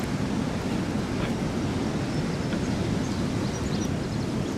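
Steady rush of river current around a driftwood logjam, mixed with wind buffeting the microphone.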